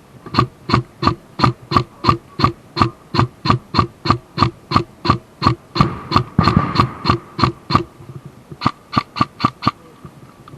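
Battery-powered airsoft electric gun (AEG) firing single shots in quick succession, about three a second, each a sharp mechanical crack. The shots pause briefly near the eight-second mark, then a handful more follow.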